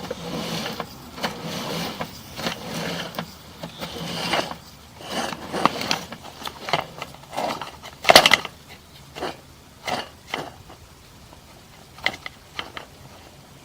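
Sewer inspection camera gear knocking, clicking and rattling irregularly as the camera and its push cable are worked through the pipe, with one sharp knock about eight seconds in.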